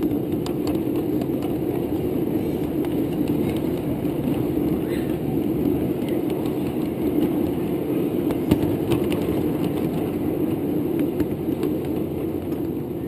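Ride-on miniature railroad train running along its track: a steady rumble from the train and its cars' wheels on the rails, with scattered light clicks.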